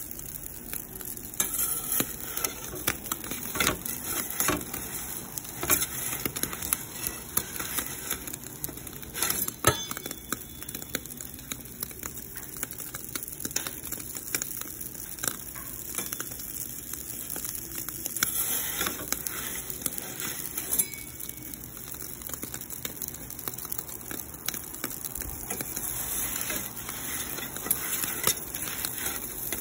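Ooni gas-fired pizza oven running, its burner hissing while the pizza on the stone sizzles and crackles with irregular sharp pops as it bakes.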